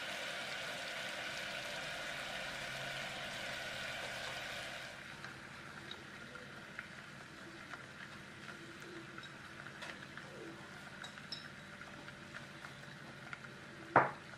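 Sugar-and-water syrup boiling in a stainless steel saucepan, the first stage of cooking caramel: a steady bubbling hiss that drops after about five seconds to quieter small pops and crackles. A single sharp click near the end.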